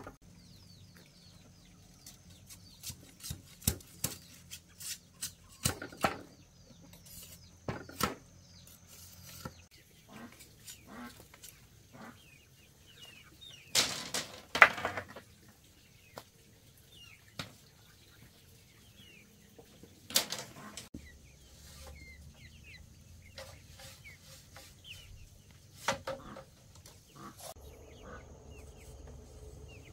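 Sharp knocks and cracks of a machete chopping and splitting bamboo: a quick run of strokes in the first third, then a few single louder blows. Chickens cluck and peep throughout.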